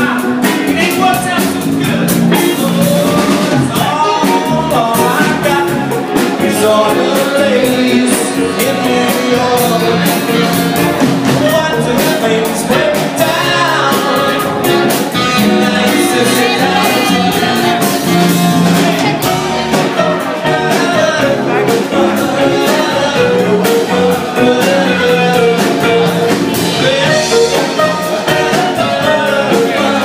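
Live soul band playing a song, with a lead vocal over a steady drum beat and the band.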